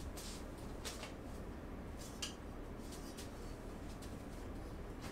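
Faint handling noise of dresser frame parts and bolts: three brief, light clicks or scrapes in the first half, over quiet room tone.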